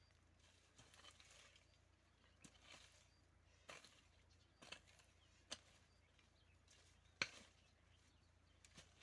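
Near silence broken by a few faint, short clicks and rustles, with one sharper click about seven seconds in.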